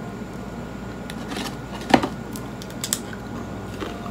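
Biting and chewing a Pringles crisp: a series of short, sharp crunches, the loudest about two seconds in and a quick pair near three seconds.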